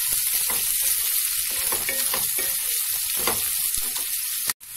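Chopped onions and green chillies sizzling in hot oil in a kadhai as a spatula stirs them, with short scrapes and taps of the spatula against the pan. The sound cuts out abruptly for a moment near the end.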